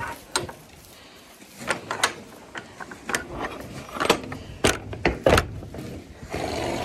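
Metal gate latch and sliding bolt on a wooden pen gate being worked by hand: a run of about eight sharp metallic clicks and knocks, irregularly spaced, over a few seconds.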